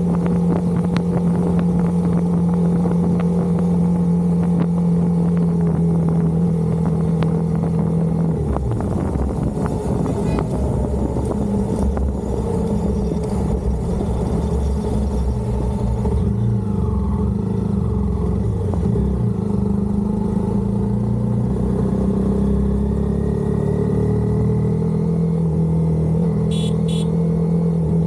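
Honda CBR250R single-cylinder motorcycle engine running on the move. The engine note holds steady for about eight seconds, then wavers and shifts under a heavy low rumble before steadying again near the end, where two short high beeps sound.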